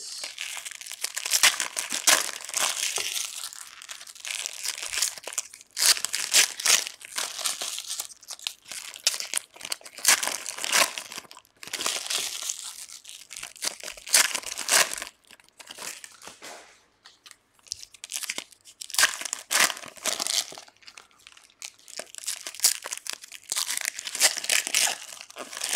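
Foil trading-card pack wrappers crinkling and tearing open, with loose cards being handled, in irregular bursts with short pauses.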